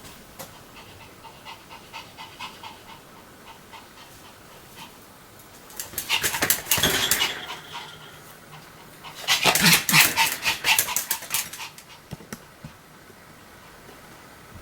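Pomeranian panting quickly and rhythmically, then breaking into two loud bouts of rapid barking, one about six seconds in and a longer one from about nine to eleven seconds.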